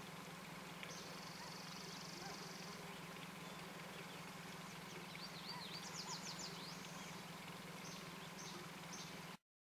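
Faint outdoor ambience of small birds chirping: a dry trill about a second in and a quick run of sweeping chirps around the middle, over a steady low hum. The sound cuts off suddenly near the end.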